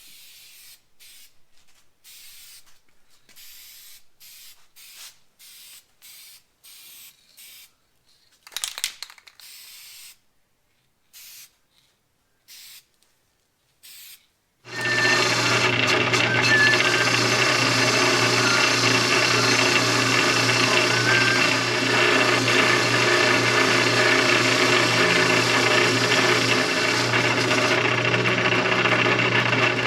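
Short hissing bursts from an aerosol spray-paint can, laying a light coat on a steel vise. About halfway through, a power tool starts much louder and runs steadily with a constant hum to the end.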